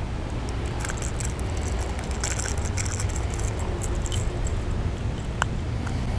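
Fishing tackle being handled: light metallic jingling and clicking for a few seconds, then a single sharp click, over a steady low rumble.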